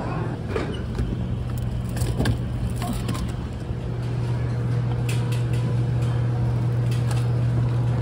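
A steady low hum in a supermarket freezer aisle, with scattered clicks and rattles from a wire shopping cart and from a frozen hash brown box being handled.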